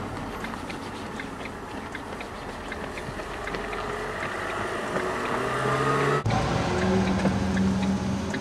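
Van engine running, its hum rising gently in pitch over a couple of seconds, with faint regular ticking. It cuts off abruptly about six seconds in to a steadier engine hum.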